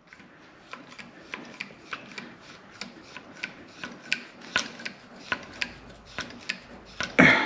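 Hand-pumped hydraulic A/C hose crimping tool being worked to press a fitting onto a hose: a steady run of short clicks and scrapes, about three or four a second.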